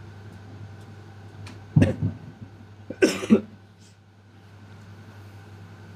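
A man coughing and clearing his throat in two short fits, about two and three seconds in, over a steady low hum.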